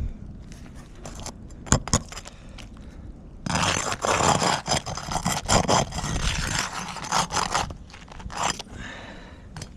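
Asphalt roof shingles scraping and rasping as a shingle is worked loose for removal. There are a couple of sharp clicks about two seconds in, then a loud scrape of about four seconds.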